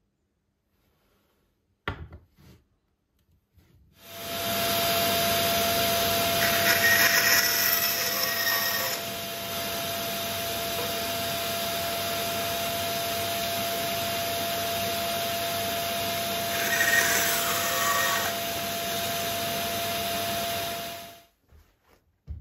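Band saw running with a steady hum, cutting through bamboo cane twice: each cut is a louder stretch of about two seconds. The saw starts about four seconds in and stops shortly before the end, after a single click about two seconds in.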